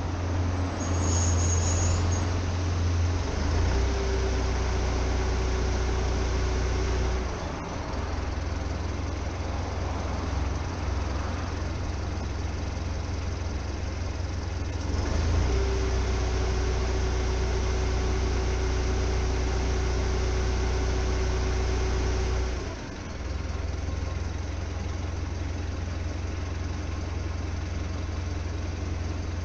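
Motor vehicle engine running with a steady low hum that shifts pitch a few times. A steady higher tone sounds twice, for about three seconds and then about seven seconds.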